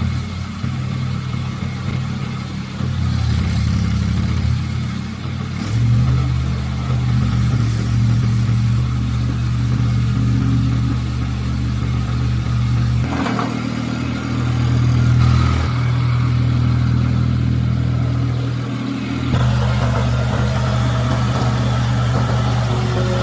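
A 2.2-tonne mini excavator's diesel engine running steadily, its note and load shifting every few seconds as the hydraulics are worked.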